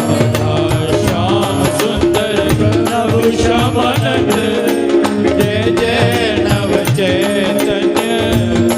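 Devotional kirtan music: a voice singing the chant over held instrumental notes, with a steady run of percussion strokes.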